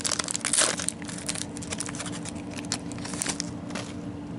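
Foil trading-card pack wrapper crinkling as the cards are pulled out of the opened pack; the crinkling is densest in the first second, then thins to scattered crackles and fades.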